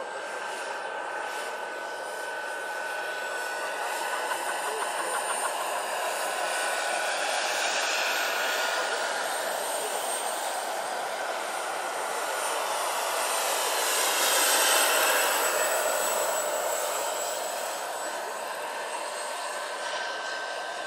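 Turbine engine of a 1/5-scale radio-controlled Kamov Ka-32 helicopter with coaxial rotors, running in flight: a steady high whine over a rush of rotor and exhaust noise. It swells louder twice, about eight and fifteen seconds in.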